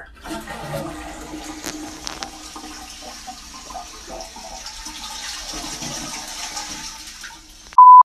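A toilet flushing: a rushing of water that stops just before a short, loud, steady beep at the very end.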